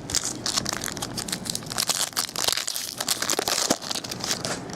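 Crinkling and crackling of a trading-card pack's wrapper being torn open and handled, with dense quick crackles throughout.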